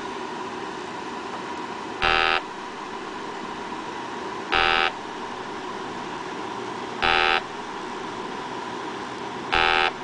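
CPS electronic refrigerant leak detector beeping four times, about once every two and a half seconds, each a short, even tone over a steady hiss, as its probe is held to the evaporator coil.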